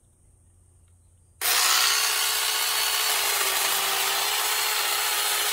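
Cordless mini chainsaw starting suddenly about a second and a half in and running steadily, its chain cutting through a moringa branch.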